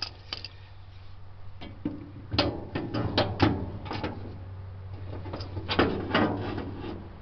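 Plastic distributor cap on a non-running GM 250 straight six being unclipped and lifted off the distributor: scattered clicks and knocks of handling, in clusters about two and a half and five and a half seconds in, over a steady low hum.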